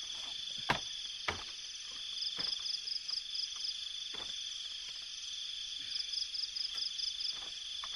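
Insects chirring: a steady high-pitched drone with runs of a higher pulsed chirp, about four pulses a second, coming and going on top. A few faint short knocks sound now and then.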